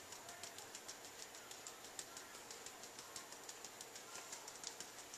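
Paprika being shaken from a spice tin, a run of quick faint ticks several a second as the tin is shaken and tapped.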